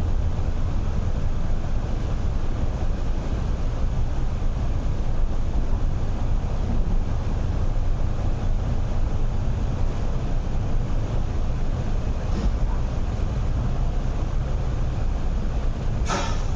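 Steady low rumble inside an MTR R-train electric train cabin as it runs at speed in a tunnel: wheels on rail and running gear. There is a short click about twelve seconds in and a brief sharp crackle near the end.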